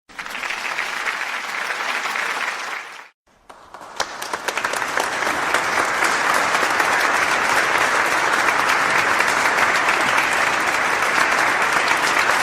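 Crowd applause: a short round of clapping that cuts off about three seconds in, then after a brief gap a second round that swells up and holds steady.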